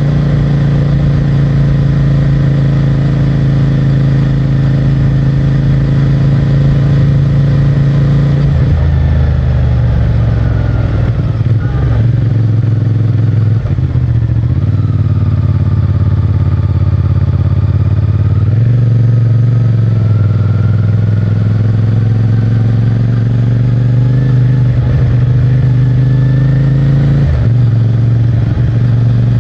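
CFMOTO 450MT's parallel-twin engine and stock exhaust under way on the road, holding a steady note at first. After about eight seconds the note breaks and shifts several times, with a slow drop and rise in pitch around the middle, as throttle and gears change.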